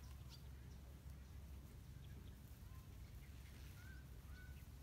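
Near silence outdoors: a faint steady low rumble, with two short, faint high chirps near the end.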